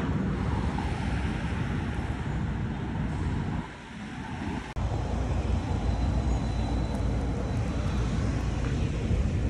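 City street traffic: cars driving past in a steady wash of road noise. It dips briefly about four seconds in and breaks off sharply just under five seconds in before the road noise resumes.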